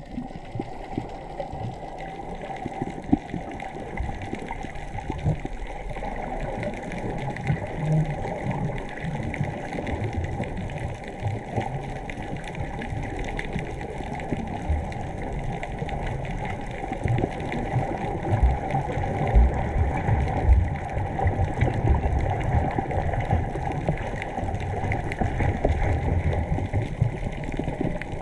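Muffled underwater noise from a camera held below the surface: water moving around the camera, with irregular low thumps.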